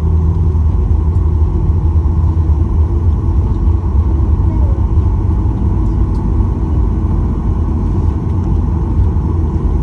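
Steady low rumble inside the cabin of a Boeing 737-800 rolling slowly along the ground after landing: its engines running at low thrust and the wheels on the pavement, with a faint steady hum above it.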